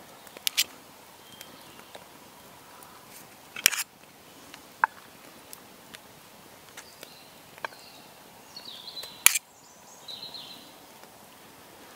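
Scattered clicks and knocks from a metal spoon serving roast potatoes onto a wooden plate, with two louder knocks, one about a third of the way through and one near the end. Faint birds chirp in the background.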